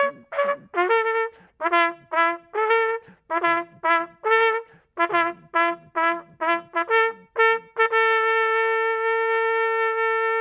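Small English post horn, a coiled brass natural horn with a built-in mouthpiece, sounding a signal call: quick, separately tongued notes switching back and forth between two pitches, then one long held note near the end.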